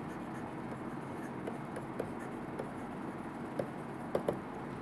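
Stylus tapping and scratching on a tablet screen while handwriting, a scatter of light taps over a steady background hiss, the sharpest taps near the end.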